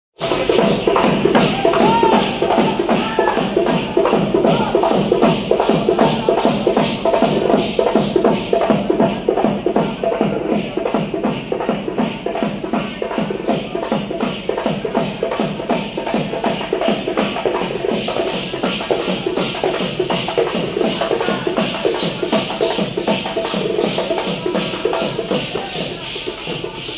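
Festival drums played with a fast, steady beat that runs without a break, mixed with voices from the crowd.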